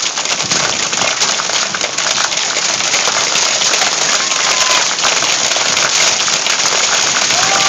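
Hailstorm: hailstones and rain pelting down in a dense, continuous clatter of many small, sharp impacts.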